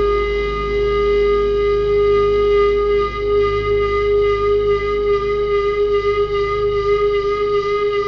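Background music: a single long held note with a soft, slowly shifting low part underneath.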